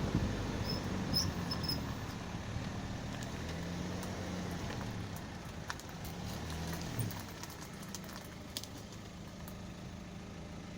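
Opel Astra H running with the steering turned to the left, a steady low engine hum whose pitch bends up and down for the first several seconds. Scattered short creaks and clicks come from the left front wheel, the creak that shows when the wheel is turned left.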